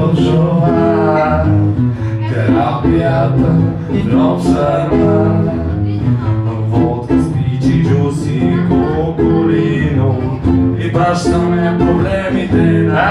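Live band music: two guitars played together under a male voice singing into a microphone.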